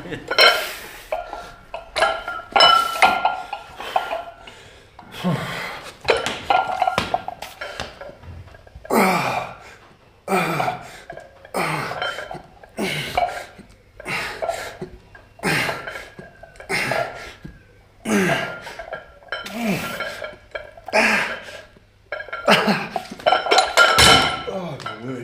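Metal gym weights clanking and clinking against each other over and over, about once a second, some strikes leaving a short metallic ring.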